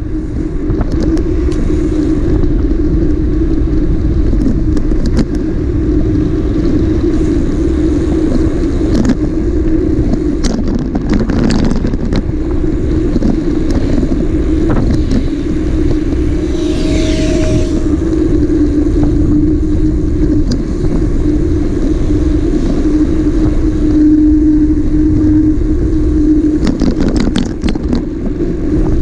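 Sport motorcycle riding at a steady speed: an even engine note over a heavy low rumble, with a few brief clicks and a short higher tone about two-thirds of the way through.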